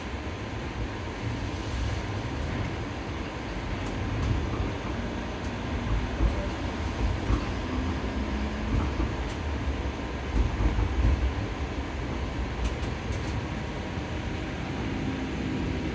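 Cabin ride noise of a TTC Bombardier Flexity Outlook low-floor streetcar in motion: a continuous low rumble of steel wheels on the rails with a faint steady hum, swelling louder a couple of times.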